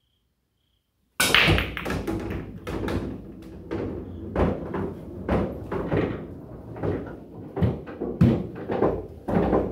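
Break shot on an 8-foot coin-op bar-box pool table: a sharp crack about a second in as the cue ball smashes into the rack, then a string of knocks and thuds as the balls bang off the rails and each other. Two balls, the 3 and the 5, drop into pockets and rumble down the table's ball-return channel.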